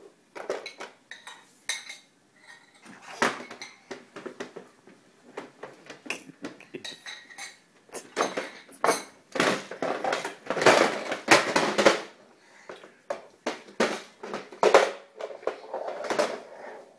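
Plastic high chair tray clattering and knocking as a toddler handles it on a wooden floor and bangs it against the high chair. Irregular knocks and scrapes, busiest and loudest from about eight to twelve seconds in.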